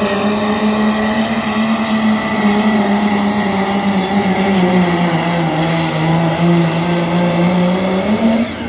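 Diesel pickup engine at full throttle pulling a weight-transfer sled, running loud and steady under heavy load. Its pitch sags a little about halfway through as the load builds, then picks up again just before the end.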